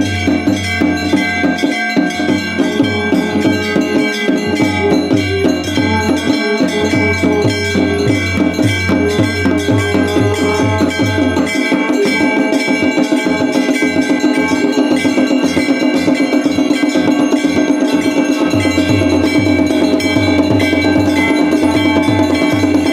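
Ritual music: bells clanging rapidly over a beating drum, with a horn blown at the start and a held tone swelling from about halfway.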